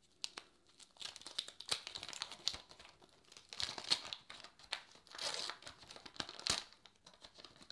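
Wax paper wrapper of a 1982 Donruss baseball card pack being torn open and peeled back from the cards, crinkling and crackling in several short bursts, with a sharp crack near the end.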